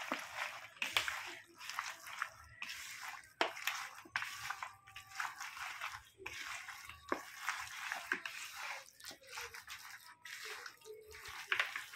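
A hand squishing and kneading raw chicken pieces in masala marinade in a plastic bowl: irregular wet squelches.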